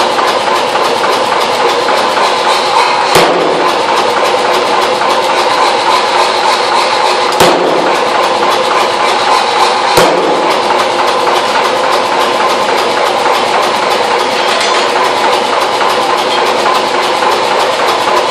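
Power hammer running with rapid, continuous blows on hot steel held in tongs under a texturing top tool. Three harder, sharper bangs stand out, about three, seven and ten seconds in.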